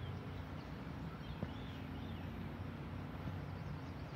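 Outdoor ambience: a steady low motor hum with a few high, arching bird chirps in the first half.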